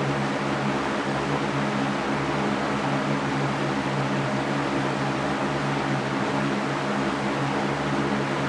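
Steady white noise for sleep: a constant, unchanging hiss with a low steady hum beneath it.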